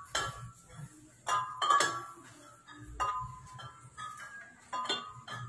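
Glass pendants of a chandelier clinking against each other as the earthquake shakes it: about seven irregular chinks, each ringing briefly.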